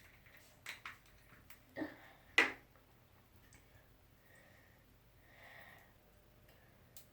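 A few soft clicks and taps from hands working a small lump of soap dough, with a couple of short sniffs and soft nose breaths.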